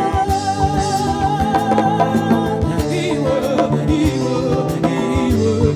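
Live band: a woman singing a long held note with vibrato, then shorter phrases, over nylon-string acoustic guitar and electric bass with a steady beat.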